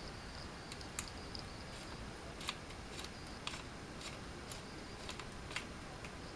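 Faint, scattered metallic clicks and light scrapes as the threaded rear end cap of a Norinco JW-14 .22 rifle's receiver is unscrewed by hand against its recoil spring.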